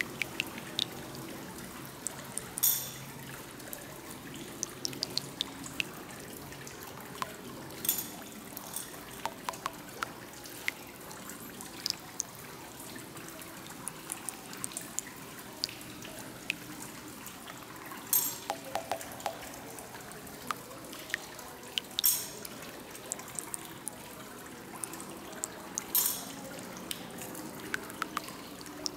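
Tiered stone fountain trickling and dripping steadily, with small drips throughout and a few short, sharp louder sounds every few seconds.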